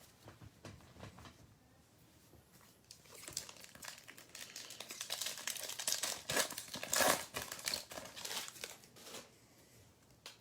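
A trading-card pack wrapper crinkling and tearing as it is opened and handled. It starts about three seconds in and is loudest past the middle.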